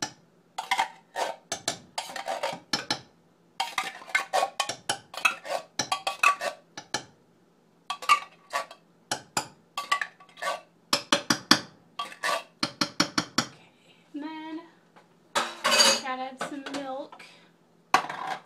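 A metal utensil scraping and knocking against the inside of a tin can, many quick strokes in clusters with short pauses, as sticky condensed soup is scraped out.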